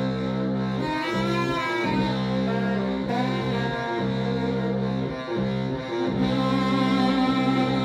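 Saxophone blown in long, low droning tones thick with overtones, each held for a second or two, then broken off and restarted, the upper overtones wobbling in pitch.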